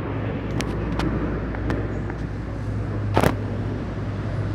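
Steady low engine rumble, with a few sharp clicks and one louder crack about three seconds in.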